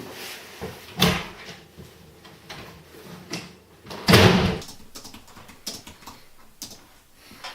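A door being handled: a sharp knock about a second in, then a louder, longer thud about four seconds in, amid small clicks and knocks.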